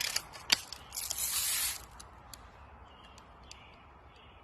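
A few light clicks, then a short hiss lasting just under a second.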